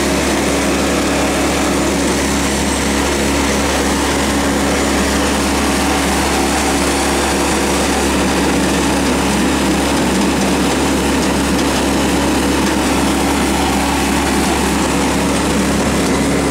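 Engine of a trailer-mounted sewer jetter running at a steady, unchanging speed.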